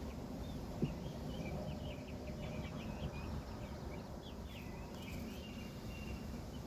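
A small bird singing a string of quick chirps and short glides, over the steady hum of honeybees at an open hive and low wind rumble on the microphone. One sharp tap about a second in.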